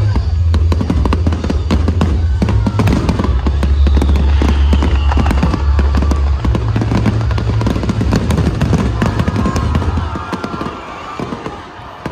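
Fireworks finale barrage: many shells bursting and crackling in quick succession over music with a deep bass line. Both drop away about ten seconds in, leaving sparser crackles.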